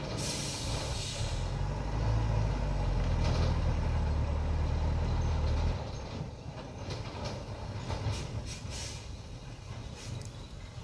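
Truck engine running hard under load on a steep dirt climb, a loud steady low rumble that eases off suddenly about six seconds in, then carries on quieter with scattered rattles. A short hiss sounds at the very start.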